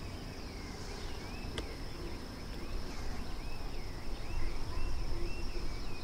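Outdoor ambience of insects: a steady high insect trill, with short rising and falling chirps repeating throughout and a low rumble underneath. A single faint click comes about one and a half seconds in.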